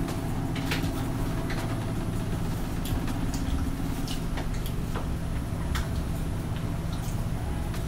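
Spoon and fork clinking now and then against ceramic plates during a meal, a short sharp click every half second to a second, over a steady low hum.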